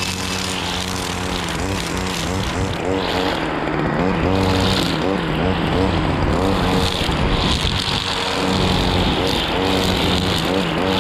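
String trimmer (brushcutter) running at high speed while cutting grass and weeds along a roadside guardrail, its pitch rising and falling as the throttle varies.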